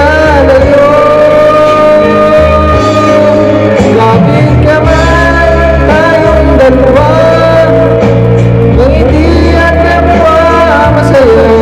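Karaoke backing music played loud through a Geepas GMS11136 Bluetooth party speaker, heavy in the bass, with a voice singing along through the wired microphone. The voice is too loud against the music.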